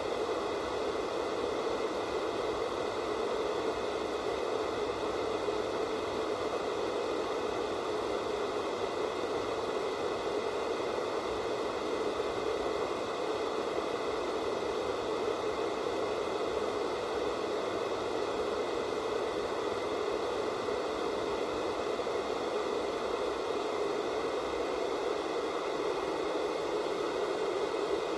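Analog television static from an untuned, no-signal channel: a steady, unbroken hiss, fullest in the lower midrange, with faint steady high tones running through it.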